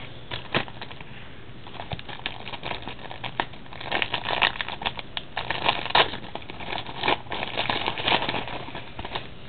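Trading-card pack wrapper and cards being handled, crinkling and clicking in uneven bursts that are busiest between about four and eight seconds in.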